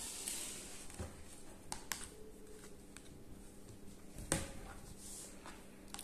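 Handling noise as a stiff picture-book page is turned: a soft rustle at first, then a few light taps and clicks, the sharpest a little past four seconds in.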